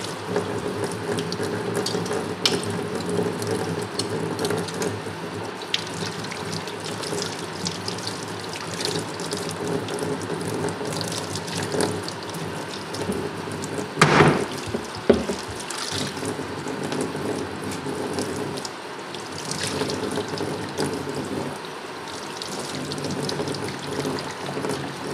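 Hot water running from a tap into a utility sink, steady throughout, with small clicks and scrapes of a knife working meat off a boiled skull. Two louder knocks come about fourteen and fifteen seconds in.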